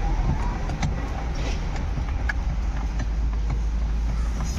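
A steady low rumble, with scattered light clicks and taps of hand tools on metal as a steering column is being unbolted.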